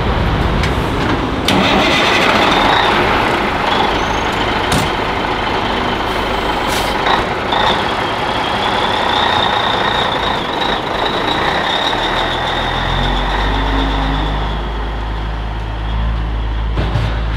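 Cabover Peterbilt 362 semi truck's diesel engine running as the rig pulls forward, with a sudden burst of noise about a second and a half in. A deep engine rumble grows loud from about twelve seconds in as the truck and trailer roll close past.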